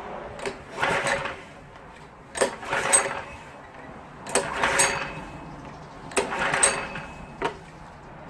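Small water-pump engine being pull-started by its recoil rope, about four pulls roughly two seconds apart, each a click and a short whirr of cranking. The engine never catches: it fails to start.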